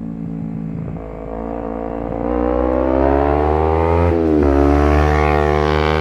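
Kawasaki Ninja 250R parallel-twin engine through a Leo Vince GP Corsa slip-on exhaust, the bike approaching under hard acceleration. The engine note rises steadily, drops briefly about four seconds in at an upshift, then climbs again, growing louder.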